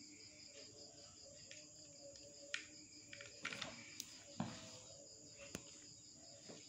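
Faint clicks and taps of a plastic toy train engine and its plastic track being handled and set down on a tile floor, a handful of small knocks spread through the middle, over a faint steady high-pitched background drone.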